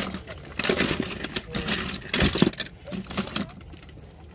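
A hand rummaging through a plastic tub of small diecast and plastic toy cars, the cars clattering against each other and the tub in quick, irregular clicks.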